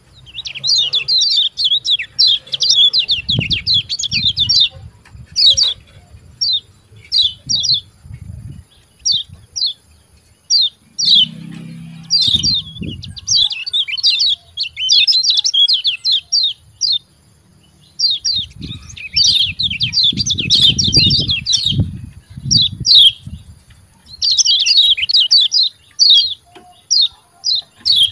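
Kecial kuning (a yellow white-eye of Lombok) giving fast runs of high, sharply downslurred 'ciak ciak' chirps in bursts with short pauses. Low rumbles run under the calls in places.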